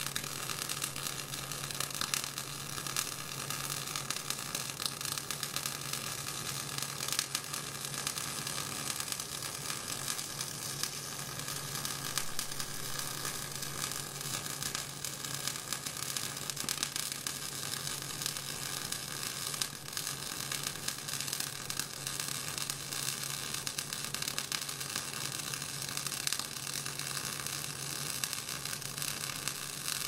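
Electric arc welding on a steel trailer hitch: the arc's steady crackling sizzle, full of fine pops, over a steady low hum.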